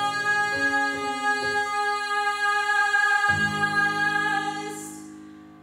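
A young woman's solo voice holding one long high note over piano accompaniment, the chords changing beneath the sustained note. Voice and piano fade away over the last second.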